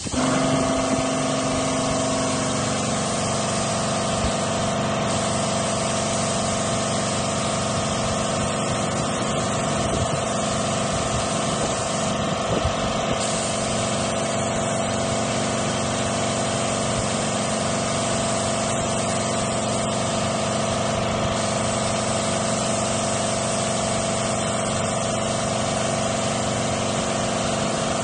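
Gentilin 330/03 air compressor kicking in and running steadily, its motor hum settling after a couple of seconds, under the continuous hiss of compressed air from an Iwata W400 spray gun.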